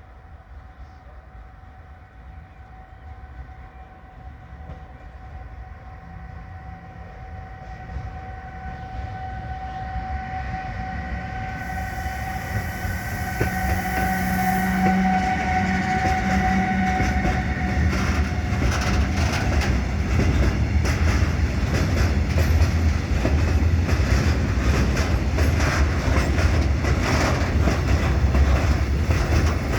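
A train approaching a level crossing, growing steadily louder, with a steady whine. From about 18 seconds in it passes close by, its wheels clattering over the rail joints and the crossing.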